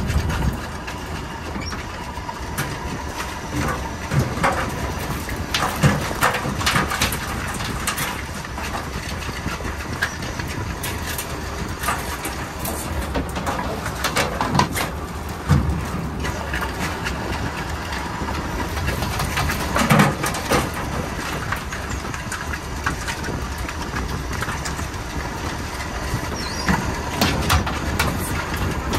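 Workboat engine running at idle with a steady low drone, overlaid by repeated clanks and rattles of wire crab pots being handled and knocked against the boat.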